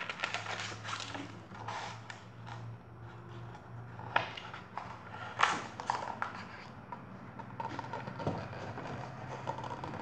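Paper rustling and scattered soft knocks as a paperback picture book is handled and its pages are turned, with the clearest knocks about four and five and a half seconds in.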